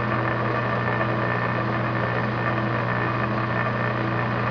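Metal lathe running steadily, its chuck turning a muzzle facing cutter against the cut-off muzzle of a 12-gauge shotgun barrel: an even motor hum with a strong low tone.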